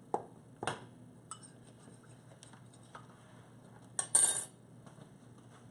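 Kitchen utensils and dishes clinking and knocking: a few separate sharp clicks, then a louder clatter about four seconds in.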